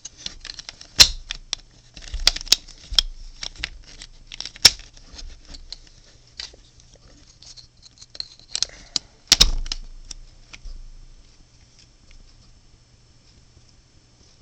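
Plastic speedcube pieces clicking and snapping as edge pieces are pushed into a partly assembled DIY Rubik's cube: a string of sharp clicks, the loudest about a second in, near five seconds and near nine and a half seconds, dying away after about ten seconds.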